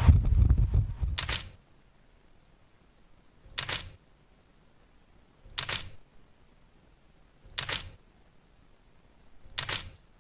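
A loud jet-aircraft rumble cuts off about a second and a half in. Five single-lens reflex camera shutter clicks follow over near silence, evenly spaced about two seconds apart.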